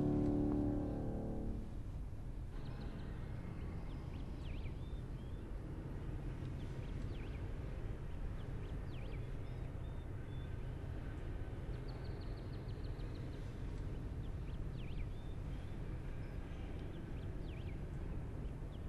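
Music ends about a second and a half in, giving way to a steady low outdoor rumble with birds chirping briefly now and then.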